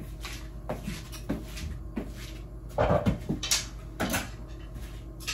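Laundry being handled on a clothes rack: clothes hangers clacking and knocking in a string of light clatters, the loudest cluster about three seconds in.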